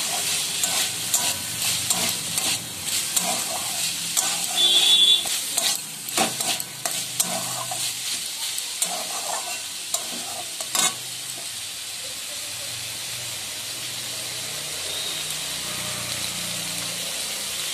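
Minced chicken with chopped onion and green chilli sizzling in hot oil in a kadai, a metal spatula scraping and clacking against the pan as the mix is stirred. The stirring stops after about eleven seconds, leaving a steady sizzle.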